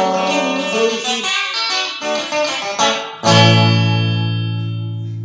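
Guitar playing a run of plucked notes, then a loud strummed chord about three seconds in that rings on and slowly fades.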